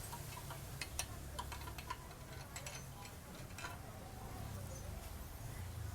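Light, irregular clicks and taps of metal parts as a DB killer baffle and its spacer are pushed into a motorcycle slip-on exhaust tip, over a faint steady low hum.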